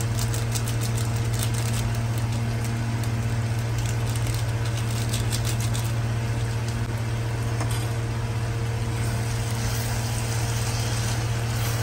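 Chicken curry simmering in a nonstick kadai with a faint sizzle and crackle, over a steady low electric hum. Near the end a spatula stirs it.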